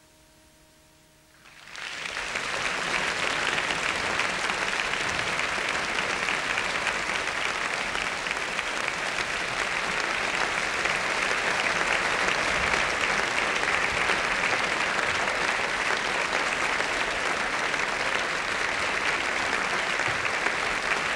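Theatre audience applauding steadily. The applause breaks out suddenly about two seconds in, just as the last faint notes of the orchestral music die away.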